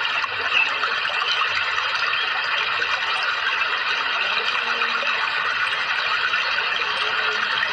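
Steady running water, an even splashing rush with no breaks, like a small stream or fountain played as a calming sound for songbirds.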